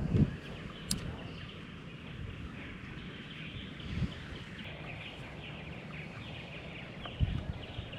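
Quiet outdoor ambience on the water: a steady hiss with faint, continuous bird chirping, and a few soft low knocks.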